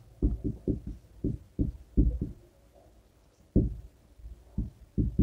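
Marker pen writing on a whiteboard: a run of short, low, dull taps as the strokes hit the board, about ten in the first two seconds, a pause of about a second, then a few more.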